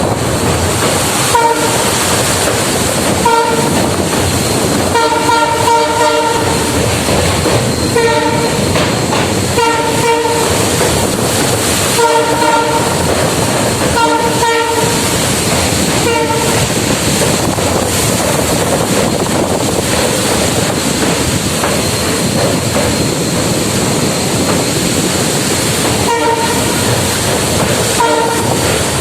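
A WDP-4 diesel locomotive's horn sounding many short blasts, often in quick runs, over the steady rumble and clickety-clack of the train's wheels on the track, heard from aboard the train it hauls. The horn stops for about ten seconds after the middle, then sounds again near the end.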